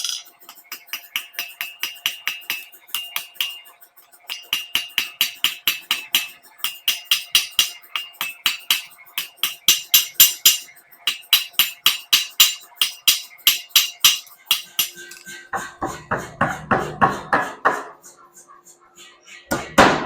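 Rapid, even hammer blows on hot Damascus steel at the forge, about four to five strikes a second with a metallic ring, in runs broken by short pauses. From about three quarters of the way through the strikes turn duller and deeper, and a loud blow lands near the end.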